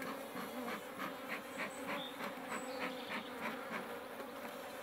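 Honeybees buzzing steadily over an open hive, with a quick series of short hisses from a bellows smoker being pumped over the frames.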